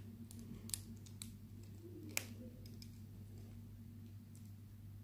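Plastic Lego pieces clicking as tiles are pressed onto the build: a few sharp clicks in the first couple of seconds, the loudest just after two seconds in, over a low steady hum.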